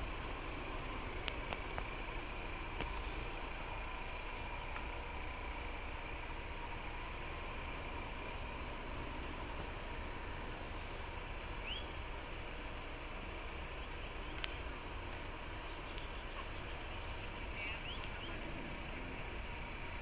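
A steady high-pitched insect buzz, with a fainter, higher pulse repeating about once a second and a few short bird chirps.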